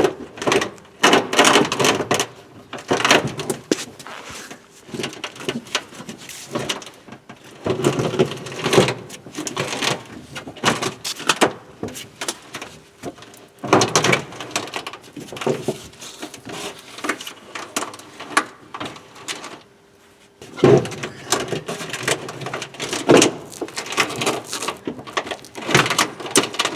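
Peugeot 307 SW spare-wheel winch being cranked with the jack handle to lower the spare wheel on its wire: irregular bursts of clicking and rattling, with a short pause about twenty seconds in.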